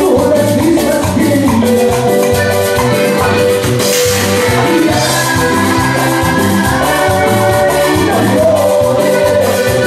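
Live Latin dance music from a band, with a steady, fast beat on timbales and cymbals under sustained melody notes.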